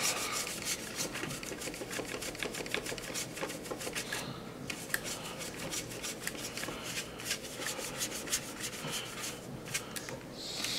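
Brush scrubbing oil paint on a model aircraft's surface in rapid, irregular short strokes, working the fresh paint back into faint weathering stains. The strokes pause briefly about four seconds in.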